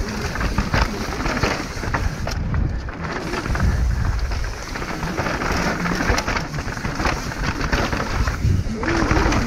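Mountain bike riding fast down a rough trail, heard from a camera on the rider: a steady crunching hiss of tyres on loose rock and dirt with clatters from the bike, and a heavy low rumble that swells and fades.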